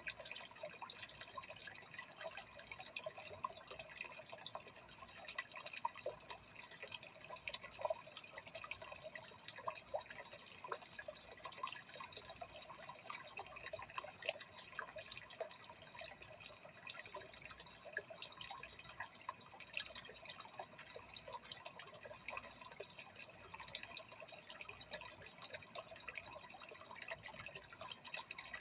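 Freshwater aquarium water trickling and bubbling at the surface: a steady, dense patter of small drips and pops.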